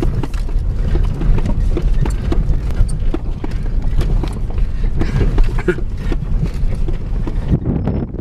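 Vehicle crawling over a rough, potholed dirt road: a steady low rumble with frequent knocks and rattles as it jolts through the holes.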